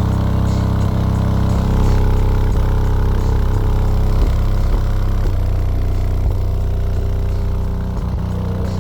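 Two DB Audio Xtinct 12-inch subwoofers playing bass music loud: deep, sustained bass notes.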